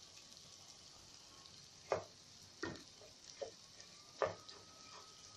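Washed rice toasting in hot oil in a non-stick pan, a faint steady sizzle, while a wooden spoon stirs it. After about two seconds the spoon scrapes and knocks against the pan in several short strokes. The rice is at the second stage of toasting, when it starts to clump.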